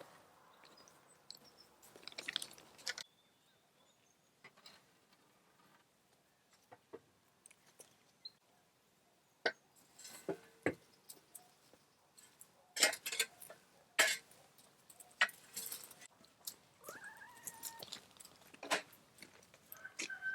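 Scattered scrapes, knocks and rustles of bedding and droppings being cleared out of a chicken coop, with a few brief hen calls near the end.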